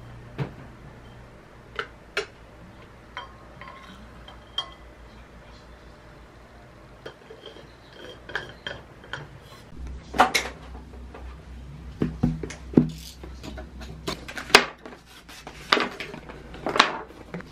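Light clicks and clinks of a tumbler being handled and its lid put on. Then a run of louder sharp knocks and rustles as a cardboard gift box is slid out of its paper sleeve and opened.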